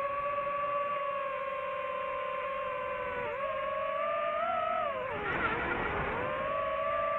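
DJI FPV drone's motors and propellers whining steadily. The pitch dips briefly about three seconds in, then falls with a rush of air about five seconds in before climbing back, as the throttle changes.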